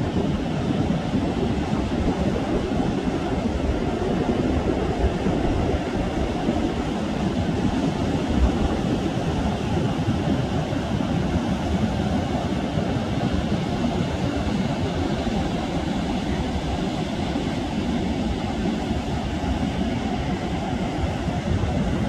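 Pacific Ocean surf breaking on a sandy beach: a steady, deep rumble of waves without pause.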